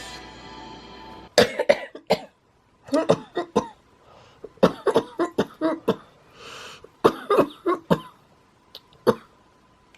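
A person with cystic fibrosis coughing in several bouts of quick, hacking coughs, with a breath drawn in between. It is a chronic CF cough. A steady background sound cuts off just over a second in, as the coughing starts.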